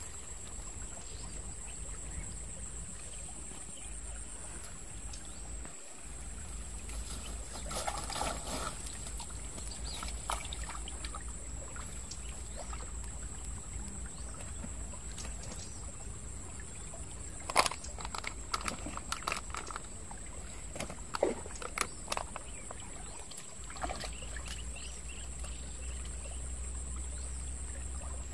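Shallow stream water trickling and lapping, under a constant high-pitched tone. In the second half come a few sharp clicks and knocks, the loudest sounds.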